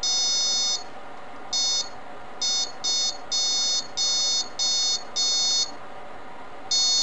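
Piezo-electric buzzer running on 9 volts, sounding a high-pitched steady beep in about eight on-off bursts of uneven length as the circuit is switched by hand. The longest bursts come at the start and near the end.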